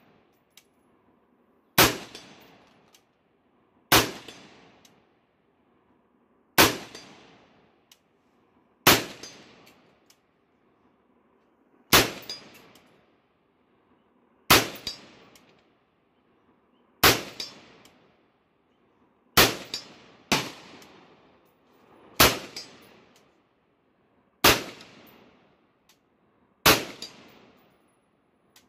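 Semi-automatic AR-15 rifle in .223/5.56 fired twelve times in slow aimed succession, roughly one shot every two seconds with two shots in quick succession past the middle. Each report is followed by a fading ring and echo, with the clang of the steel gong target being hit.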